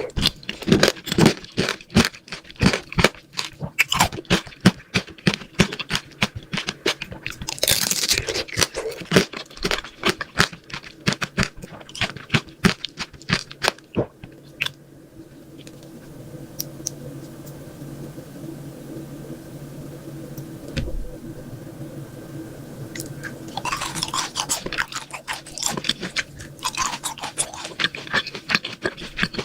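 Close-miked crunchy chewing: a person biting and chewing crisp sweets in rapid crackles. Around the middle the crunching drops away for about eight seconds, leaving softer mouth sounds over a faint steady hum, then the crunching resumes near the end.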